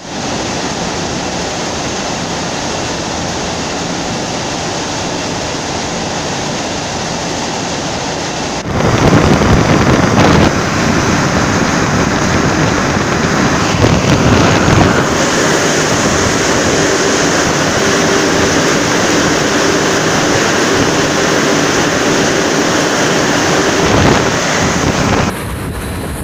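Steady rushing noise of a french-fry freezing line: conveyor machinery and the air blowers of a fluidized IQF freezer. About nine seconds in it jumps to a louder rush with a faint steady hum, and it drops back shortly before the end.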